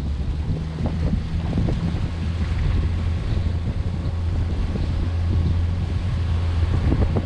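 Outboard motor of a small aluminium boat running at a steady low drone while trolling, with wind buffeting the microphone.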